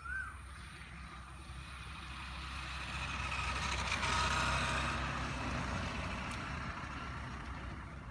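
A road vehicle driving past, growing louder to a peak about halfway through and then fading away, over a steady low rumble. A short, high chirp comes right at the start.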